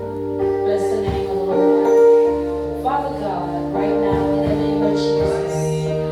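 Church keyboard music: held chords over a slowly changing bass line, with a voice singing over it.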